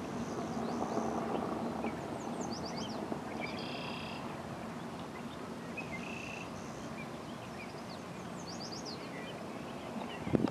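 Outdoor ambience: a steady low hum over background noise, with small birds chirping in short, quick high-pitched series now and then. A brief knock right at the end.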